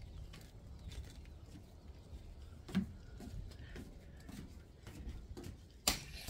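Footsteps and scattered light knocks of someone walking across wooden deck boards. There is a duller thump about three seconds in and a sharp, louder knock near the end.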